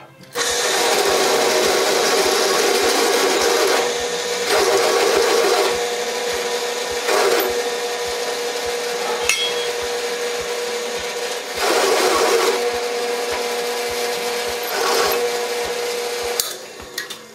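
Drill press running, its twist bit cutting into a flat steel bar. A steady motor hum runs under louder cutting stretches each time the bit is fed down. The machine stops near the end.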